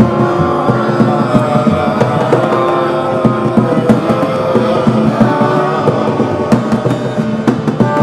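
Live freeform music: percussion struck in quick, uneven strokes over several held instrument tones.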